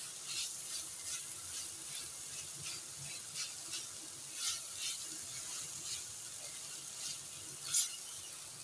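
Chicken and vegetable filling frying in a stainless steel pan while a silicone spatula stirs it: a steady sizzle under irregular light scrapes and ticks of the spatula against the pan, with a louder click near the end.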